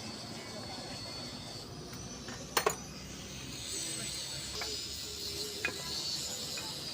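Metal tools clinking against engine parts: one sharp double clink about two and a half seconds in, then two lighter clicks, over a steady background hum.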